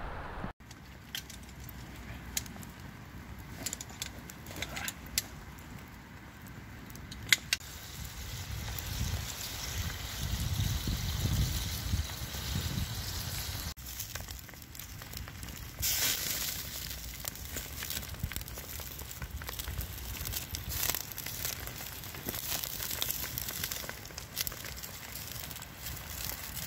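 Wood campfire burning, crackling and popping with sharp snaps. From about 16 s in a louder hiss joins: bacon sizzling on a flat stone laid over the fire.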